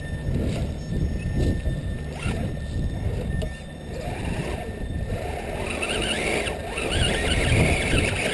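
Heavy wind buffeting on the microphone over the faint whine of an Axial Wraith RC rock crawler's 27-turn brushed motor and gears as it crawls over rocks; a higher squealing comes in near the end.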